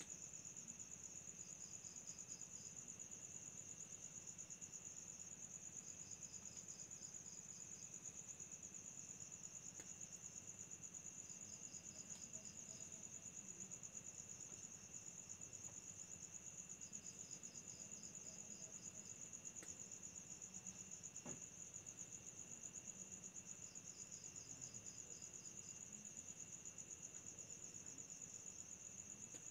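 Faint chorus of crickets trilling steadily at night, with a second insect giving short runs of rapid chirps about every five seconds.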